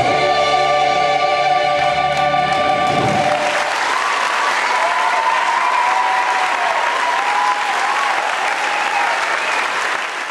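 A stage musical number ends on a held chord, with singing, that stops about three seconds in. A theatre audience then applauds.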